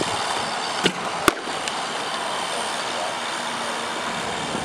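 A softball pitching machine firing a pitch about a second in, followed less than half a second later by the louder, sharper crack of the bat hitting the ball, over steady background noise.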